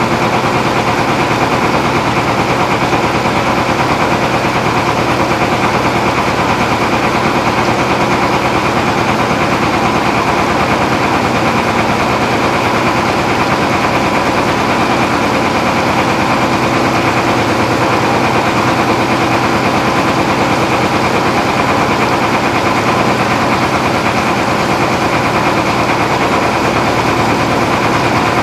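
A small tour boat's engine running steadily under way, a loud, even, rapid chugging that holds one pitch.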